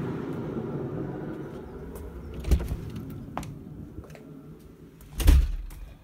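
Chinese 5 kW diesel heater running with a steady low rumble that fades away. There is a knock about two and a half seconds in, then a louder thump of a door shutting about five seconds in.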